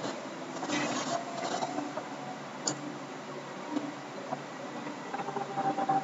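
Steady microphone hiss and room noise with a faint hum, and one short click about two and a half seconds in.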